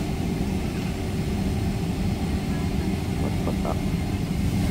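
Airliner cabin noise heard from inside the passenger cabin: a steady low rumble.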